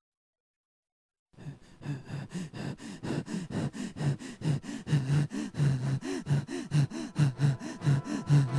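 Rapid, rhythmic breathy gasps, several a second, starting suddenly after about a second and a half of silence and growing louder.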